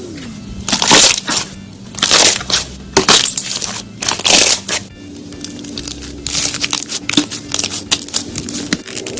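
Crunchy slime being pressed and squeezed, crackling and popping in four loud bursts about a second apart, then a denser run of smaller crackles. A steady low hum runs underneath, dropping in pitch at the start and shifting about five seconds in.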